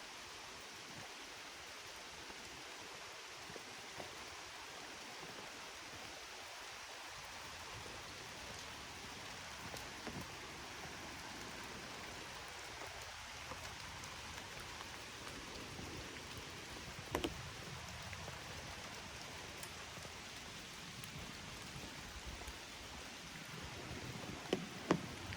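Steady rain falling, an even hiss of drops, with a few short knocks about two-thirds of the way through and again near the end.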